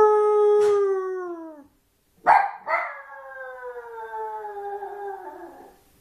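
Maltese puppy crying in long whining howls. One held cry tails off downward and stops. After a short gap, two quick yelps run into a second long cry that slowly falls in pitch and fades away.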